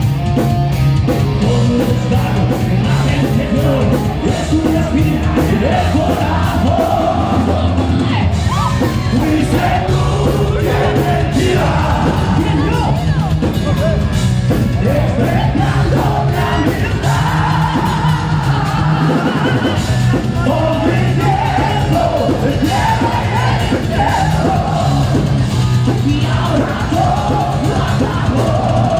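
Heavy metal band playing live: distorted electric guitars, bass and rapid drums under a male singer's vocals.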